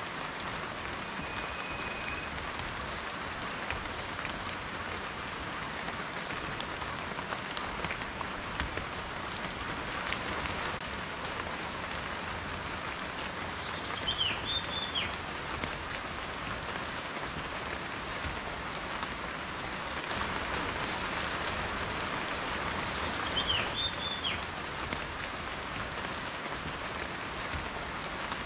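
Steady rain falling, a continuous hiss with scattered individual drops ticking through it.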